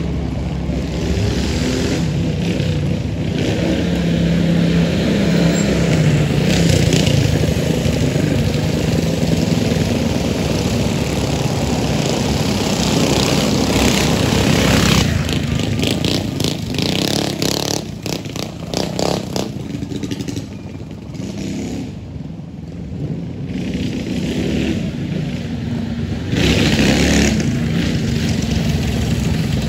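Mini bike engines running hard in a dirt drag race. Two bikes go by at full throttle about halfway through, the noise drops off after they pass, then it rises again near the end.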